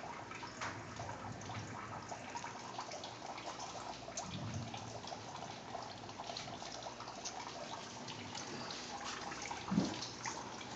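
Quiet room tone: a steady faint hiss with scattered small rustles and clicks, and one short thump near the end.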